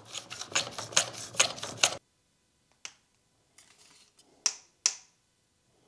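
Hand plane cutting wood on a shooting board: a quick run of short scraping strokes that stops abruptly about two seconds in. A few faint single knocks of wood and tool being handled follow.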